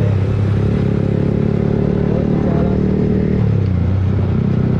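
Yamaha MT-15's single-cylinder engine running through an Akrapovic exhaust with the dB killer removed, heard from the rider's seat while riding. The engine note changes sharply at the start and again about three and a half seconds in as the bike slows.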